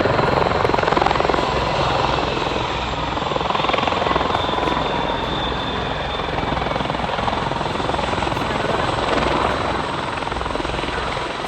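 Bell V-280 Valor tiltrotor flying a low-speed manoeuvring display, its rotors and engines running with a steady, continuous thrum.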